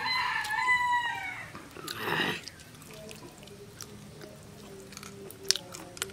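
A rooster crowing once, a call of about a second and a half, followed about a second later by a short harsh downward-sweeping call. A single sharp click near the end.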